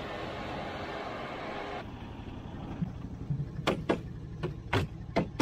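A John Deere tractor running steadily. After a cut about two seconds in, the tractor idles with a low rumble while a hand slaps its dust-caked mesh side screen, giving several sharp knocks near the end.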